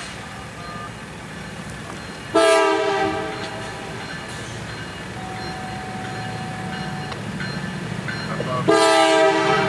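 Multi-note air horn of a Norfolk Southern GE Dash 9-40CW diesel locomotive leading a freight train, sounding two blasts of about a second each, one about two seconds in and another near the end, as a grade-crossing warning. Between the blasts the low rumble of the approaching train slowly grows louder.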